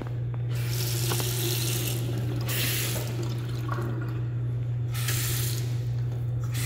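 Water running from a lever-handle faucet into a porcelain sink, the splashing coming and going in several surges, over a steady low hum.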